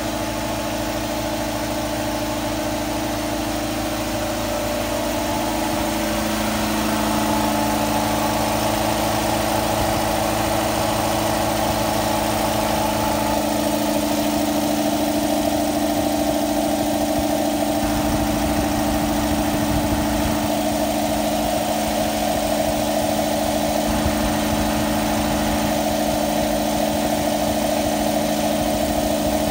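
Campbell Hausfeld 60-gallon vertical air compressor running, its electric motor driving the pump with a steady hum. It grows slightly louder over the first several seconds, then runs evenly.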